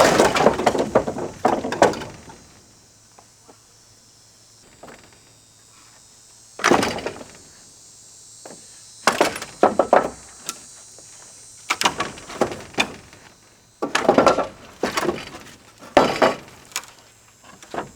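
Porch demolition: wooden boards cracking, breaking and clattering down in several separate crashes, a few seconds apart.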